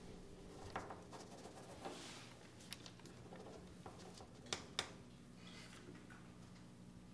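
Quiet room tone with a low steady hum, faint scratching and scattered soft clicks of pens and pencils writing on paper at desks. Two sharper clicks come close together a little past the middle.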